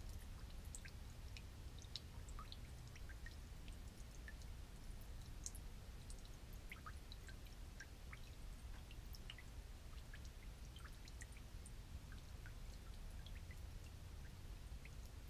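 Old gasoline dripping from a broken valve on an old generator into a drain pan of pooled fuel. It makes faint, irregular little plinks, several a second, over a low rumble.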